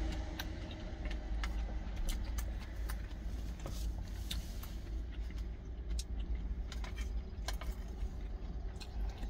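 Scattered light clicks and taps from eating: a wooden spoon and chopsticks knocking against small food containers, and chewing. A steady low vehicle rumble runs underneath.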